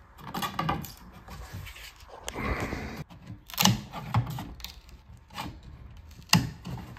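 A flat pry bar being worked behind painted wooden door casing to pry it loose: scraping and a series of sharp clicks and knocks, the loudest about three and a half seconds in and again near the end.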